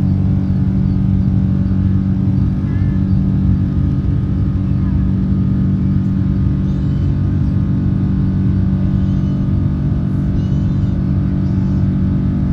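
Steady low drone of a Boeing 777-300's engines and airflow heard inside the passenger cabin, with several steady low tones under the rumble.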